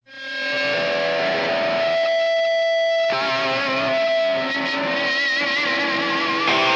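Music: the intro of a rock song, electric guitar through effects with some distortion, fading in quickly and playing held notes. About three seconds in it changes to wavering notes, and near the end it turns fuller and slightly louder.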